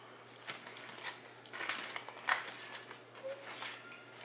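Faint, irregular crunching and rustling of nachos being eaten.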